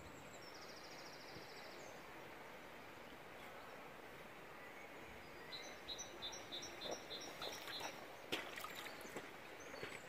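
Faint steady rush of a shallow stream running over stones, with a small bird singing: a short buzzy trill near the start, then a run of about eight quick high chirps around the middle. A couple of faint knocks near the end.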